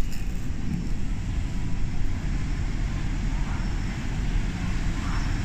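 Low, steady rumble of a diesel railcar's engine at the station platform.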